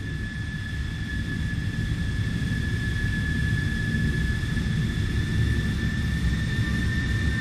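Aircraft turbine engine running: a steady high whine over a low rumble, growing gradually louder.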